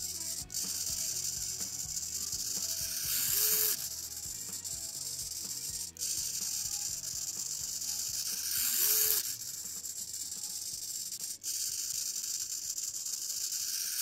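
SG90 micro servo's small motor and plastic gear train whirring as it swings its horn back and forth, a steady buzzing with a louder burst about every five and a half seconds.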